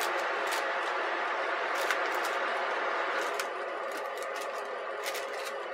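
Pastry brush dabbing a butter and maple syrup glaze onto sweet potatoes on a foil-lined baking tray: scattered soft taps over a steady hiss.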